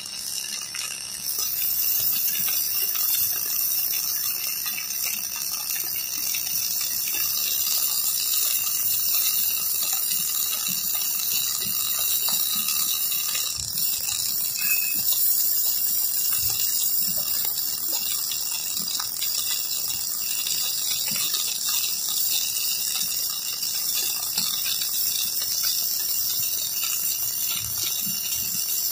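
Electric arc welding: the arc hisses and crackles steadily, a high continuous hiss with many small pops through it, a little louder from about a second in.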